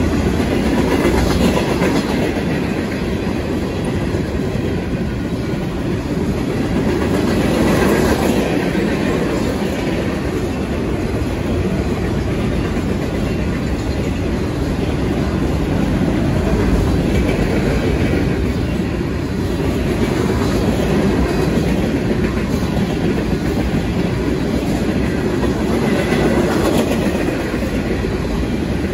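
Freight train cars rolling past at speed: a steady, loud rumble of steel wheels on the rails, swelling and easing a little as cars go by.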